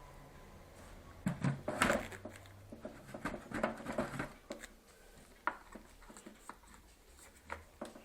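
A run of clicks, knocks and rattling from things being handled, starting about a second in and thinning out to a few scattered clicks after the middle.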